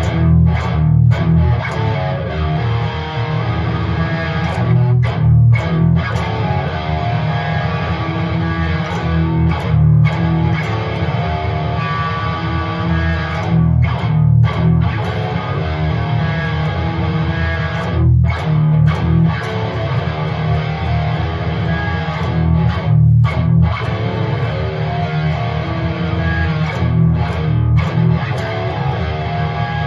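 Electric guitar played through an amplifier, fingering chords with a full, heavy low end. The phrase comes round about every four to five seconds, with a brief break in the ringing before each repeat.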